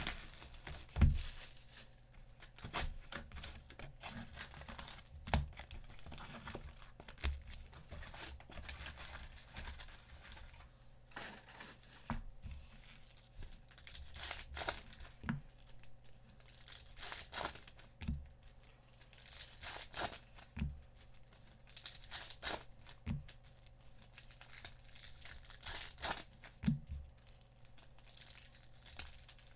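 Wrappers of 2023-24 Bowman Chrome University basketball hobby packs being torn open and crinkled in irregular bursts, with occasional short soft knocks on the table.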